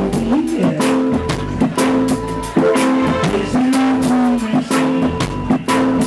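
Live reggae band playing, with electric guitar over a drum kit keeping a steady beat.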